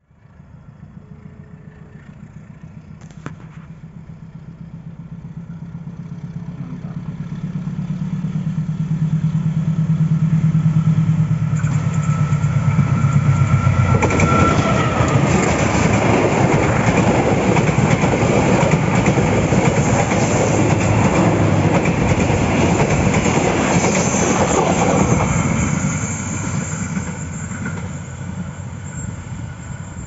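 KA Logawa passenger train passing close by. Its diesel locomotive's engine hum grows steadily louder over the first dozen seconds as it approaches. Then comes the loud clatter and rumble of the carriages' wheels on the rails, which fades near the end.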